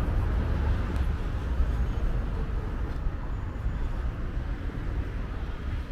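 Outdoor street ambience dominated by a steady low rumble of road traffic.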